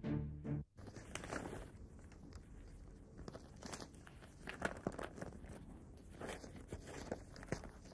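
Paper rustling and crinkling as a letter is drawn out of an envelope and unfolded by hand, in short irregular crackles. A brief tail of music with drums cuts off less than a second in.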